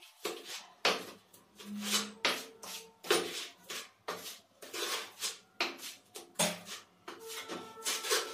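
Cement mortar being scooped from a pan and spread onto the back of a border tile: a run of short scrapes and knocks, roughly one or two a second.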